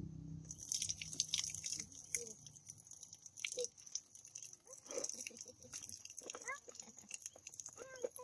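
Water from an outdoor standpipe tap pouring and splashing onto concrete, starting about half a second in, a steady hiss crackling with many small splash clicks.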